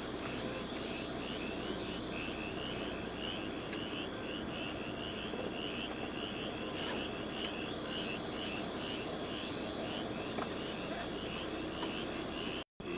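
Steady gusty wind on the microphone, with high-pitched chirping repeating a few times a second over it. The sound drops out completely for an instant near the end.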